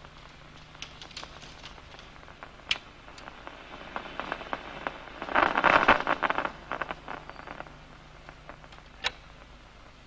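Crackling clicks of locust DCMD nerve impulses played through an audio monitor. Scattered single clicks come first. A little after halfway there is a dense burst of rapid clicks lasting about a second: the neuron's burst of action potentials as the target disc passes across the locust's eye.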